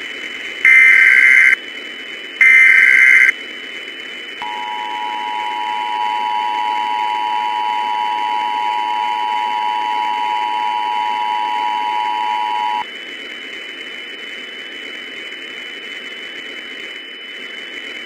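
Emergency Alert System tones: two short, loud, buzzy SAME header data bursts, then the two-tone EAS attention signal held steadily for about eight seconds before cutting off suddenly. Hiss with a faint steady high tone follows.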